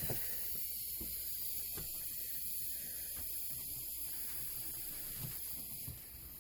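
Steady hiss with a faint low hum underneath and a few light knocks.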